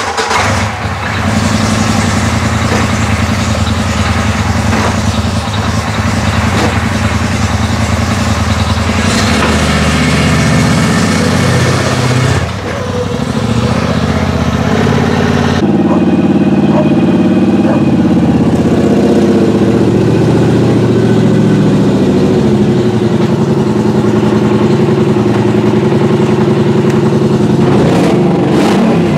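Polaris Sportsman XP 1000 ATV's twin-cylinder engine running with a loud racket from the exhaust area at the front. Its note changes about halfway through. The owner suspects an exhaust damaged by heat wrap, or a loose exhaust connection at the engine.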